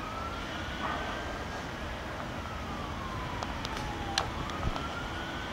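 A siren wailing slowly, its single tone rising, falling and rising again in pitch, over a few light clicks.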